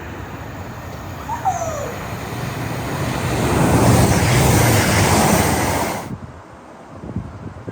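A train passing at speed: a rushing rumble that builds to its loudest about four seconds in, then cuts off suddenly, leaving a quieter rumble with a few clicks.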